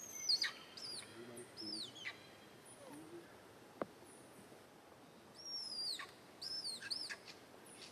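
Baby macaque crying: short, high-pitched, arching cries, a few near the start and another bout about five and a half to seven seconds in. A single sharp click near the middle.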